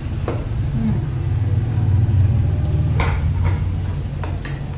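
A low rumble that swells to its loudest about two seconds in and then eases off, with a few sharp clicks of metal forks against a glass baking dish and a ceramic bowl, the loudest pair about three seconds in.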